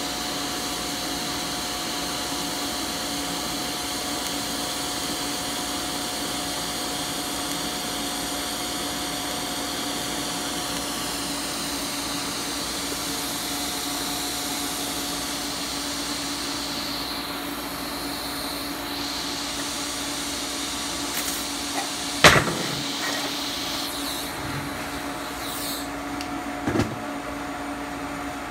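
TIG welder and DC arc on 16-gauge 304 stainless, a steady hum and hiss. The arc goes out about eleven seconds in while the machine's steady hum carries on. A sharp clack comes about 22 seconds in and a shorter knock near the end.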